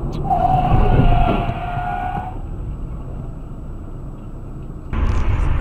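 Tyres screeching for about two seconds, a single sustained squeal that sags slightly in pitch, over steady car road noise: a car skidding as it swerves under braking. Near the end the road and engine noise jumps suddenly louder.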